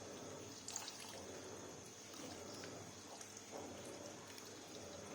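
Blended tomato pulp being squeezed in a strainer, the juice faintly dripping and trickling through, with a light tap under a second in.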